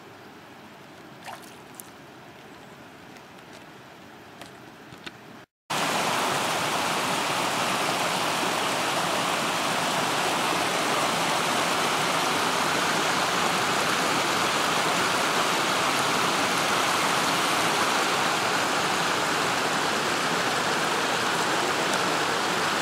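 Stream water flowing: faint at first with a few small ticks, then after a brief dropout about five and a half seconds in, a much louder, steady rush of water.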